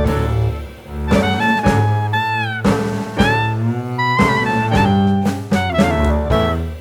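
Background jazz music: a saxophone-like horn line that slides between notes, over a walking double bass and drum kit.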